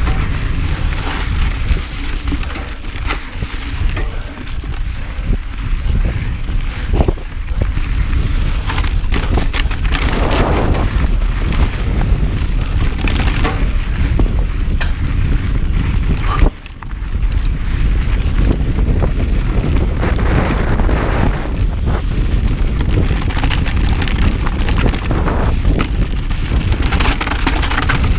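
Mountain bike riding a rocky dirt singletrack: steady wind rumble on the camera microphone with tyre crunch and frequent clicks and rattles from the bike over rocks.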